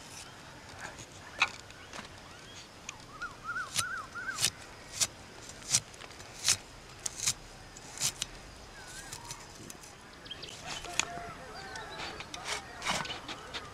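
A cleaver chopping shallots and tomato against a wooden log: a series of sharp knocks, about one every 0.7 s, that stops about two-thirds of the way in. Small birds chirp faintly in the background.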